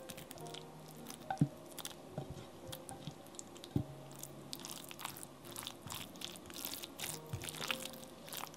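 Kitchen food-preparation noises: an irregular run of soft crunching, squishing and light clicks, denser in the second half, with two louder knocks, one about a second and a half in and one near four seconds. Quiet background music plays underneath.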